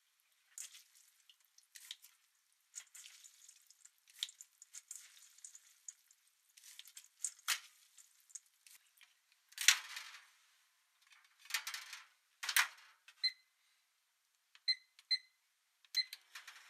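Soaked glass noodles being lifted and let fall in a stainless steel colander: quiet wet rustling and dripping with light taps on the metal and a few sharper clicks. Near the end come several short electronic beeps, like a microwave keypad being pressed.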